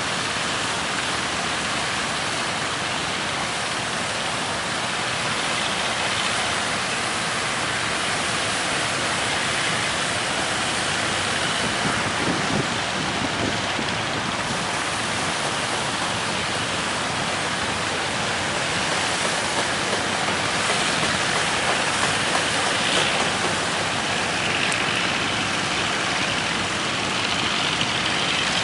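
Steady rush of strong wind and breaking waves aboard a motor fishing boat under way out to sea, with the boat's engine running beneath.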